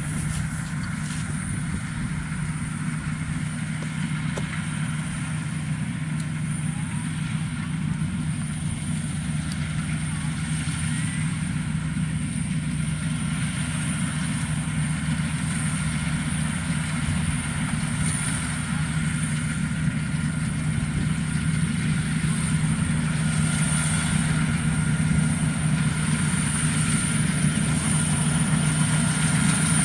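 WD102 Pro rice combine harvester running steadily while cutting and threshing rice, an even engine drone.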